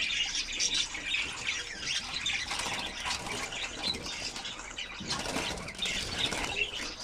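A flock of budgerigars chattering and chirping, with the flutter of wings as a young budgie is released into a cage among them.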